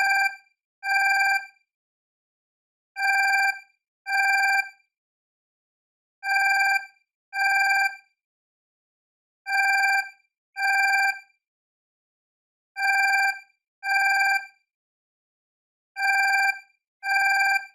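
Alarm clock ringing in a trilling bell tone. It sounds in pairs of short rings, each under a second long, with a pair about every three seconds.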